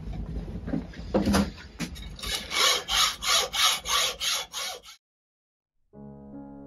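Hand hacksaw cutting the casting lumps off a cast-iron Stuart 10V cylinder casting held in a bench vice, in quick, even strokes about three a second. The sawing cuts off suddenly, and music starts about a second later.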